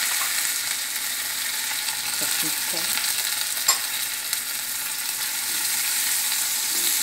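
Spices and curry leaves sizzling steadily in hot ghee in a pan, a tempering of cumin, crushed black pepper, ginger, curry leaves and green chillies, with one sharp click a little past halfway. A wooden spatula stirs the pan near the end.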